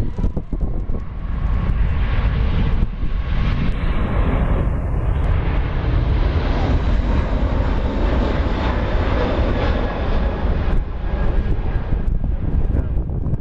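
Airliner engine noise, loud and steady, with strong gusty wind buffeting the microphone.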